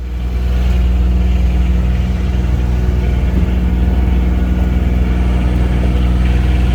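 Construction machine's engine running loud and steady close by, with a low, even hum. It swells up sharply at the very start.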